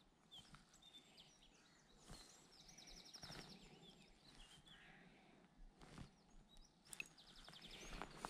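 Faint birdsong: small birds chirping, with a rapid high trill about two and a half seconds in and another near the end. A couple of faint clicks come between them.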